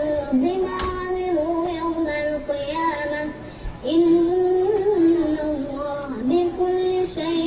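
A young boy chanting Qur'an recitation in a high, melodic voice, with long held notes that slide from pitch to pitch and a brief pause for breath about three and a half seconds in.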